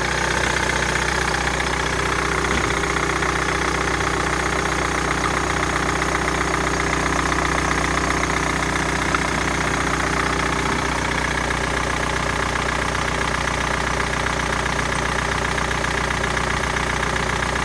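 BMW 204D4 2.0-litre four-cylinder turbodiesel idling steadily and evenly, a sign that the engine runs well.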